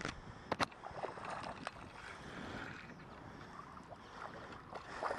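Faint handling of a spinning rod and reel while a small fish is reeled in to the bank: two sharp clicks about half a second in, then light ticks over soft water noise.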